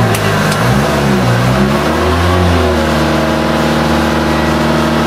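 Boat engine running under way. Its pitch wavers for the first couple of seconds, then settles into a steady note.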